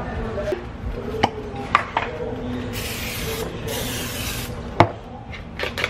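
Aerosol cooking spray hissing onto the plates of an open waffle iron in two short bursts, about three seconds in. A few sharp clicks and knocks come before and after, the loudest near the end.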